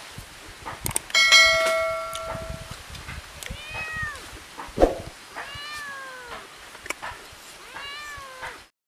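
A bell ding about a second in that rings on for about a second and a half, then a cat meowing three times, each call rising and falling in pitch, with a sharp click between the first and second meow.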